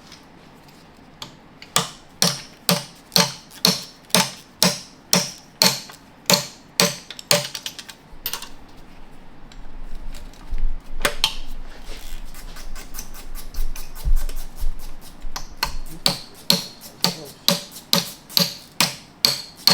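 Hammer striking a punch, metal on metal, driving the shift rail roll pin out of an NV5600 transmission case: a steady run of sharp strikes about two a second, a pause with a few single blows and light taps, then a second run of strikes near the end.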